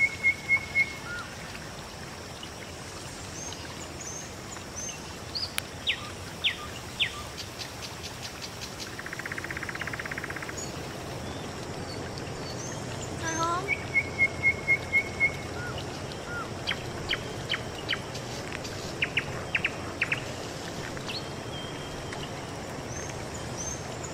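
Several birds calling over steady outdoor background noise. A fast run of about eight even chirps comes near the start and again about halfway through, with scattered short, sharp falling whistles in between.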